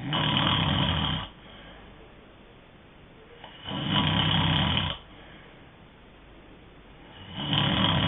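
A person snoring in their sleep: three snores about three and a half seconds apart, each lasting about a second, with a steady rhythm.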